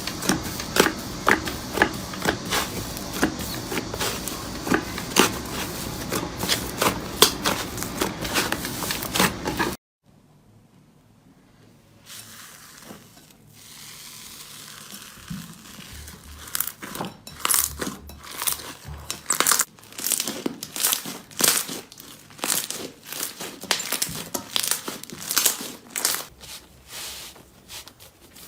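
Slime being squeezed and stretched by hand, giving off dense crackling and popping clicks. About ten seconds in the sound drops out briefly, then softer, sparser crackles follow.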